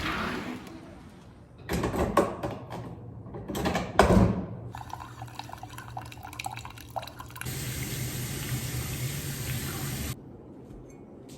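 Coffee machine dispensing coffee into a cup: a steady pouring hiss with a low hum for about two and a half seconds, cutting off sharply. Before it come a few clunks and knocks.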